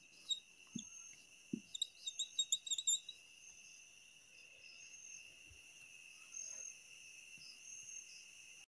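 Steady chorus of crickets trilling at several high pitches, with a few soft knocks and a flurry of rapid ticks in the first three seconds; the sound cuts off abruptly near the end.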